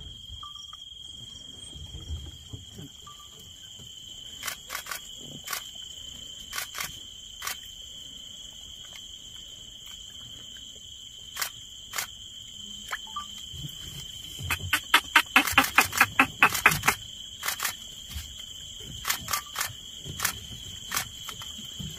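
Insects droning steadily at a high pitch, over sharp camera-shutter clicks: single clicks here and there, and a fast burst of about a dozen clicks a little past the middle, the loudest sound here.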